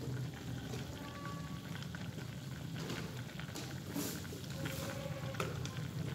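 Vegetable soup of chayote and tofu puffs simmering in a wok, with scattered small bubbling pops over a steady low hum.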